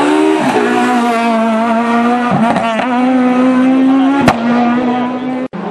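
Renault Clio rally car engine held at high revs at full throttle. The pitch dips and recovers briefly near the start and again about two and a half seconds in, as at gear changes. There is a single sharp crack about four seconds in.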